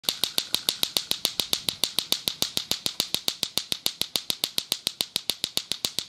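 Lato-lato clacker toy: two hard plastic balls on strings knocking together in a fast, steady rhythm, about seven clacks a second.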